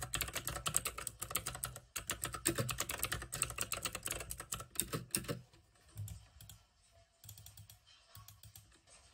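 Rapid typing on a computer keyboard, a quick run of key clicks that thins out to a few scattered clicks in the second half.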